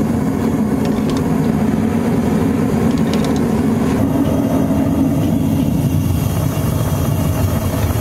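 Propane burner of a gas metal-melting furnace running with a steady rush, firing at preheat pressure. A few light clinks near three seconds in as pieces of metal are dropped into the hot crucible with tongs.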